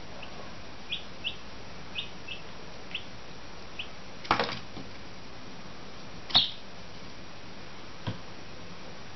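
Chicken chick peeping, about seven short, high peeps in the first four seconds. Then come a few sharp knocks: two close together just past four seconds, the loudest about six seconds in, and one more near the end.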